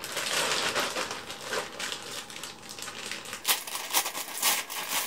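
Plastic poly mailer bag crinkling and rustling as it is handled and pulled open, with a few sharper crackles in the second half.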